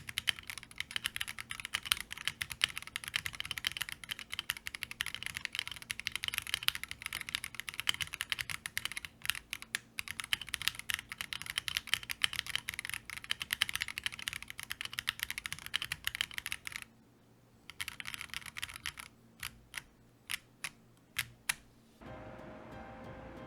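Fast, continuous typing on an Akko MOD005 gasket-mounted mechanical keyboard, keystrokes clacking densely. After a short pause about three-quarters in, it slows to a handful of single key presses, then soft background music starts near the end.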